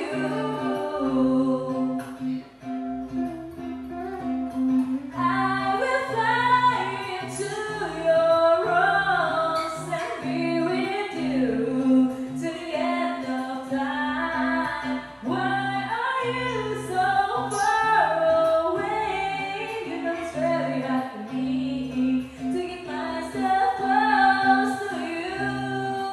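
A woman singing a pop ballad over a karaoke backing track, her melody gliding over a steady accompaniment with a repeating bass line.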